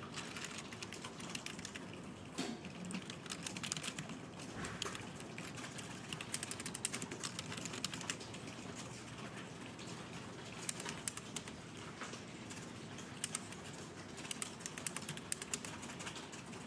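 Fast, continuous typing on a Logitech computer keyboard: a steady patter of key clicks.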